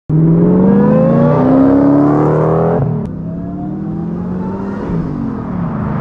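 Lexus GS sedan's engine accelerating hard, its pitch climbing, then dropping sharply about three seconds in at an upshift before pulling up again.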